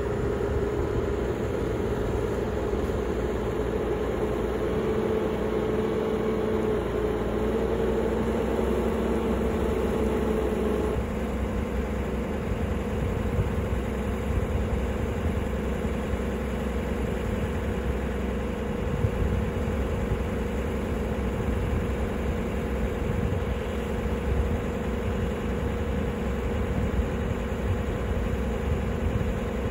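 A motor running steadily, a constant hum with a pitched tone that steps slightly higher about eleven seconds in.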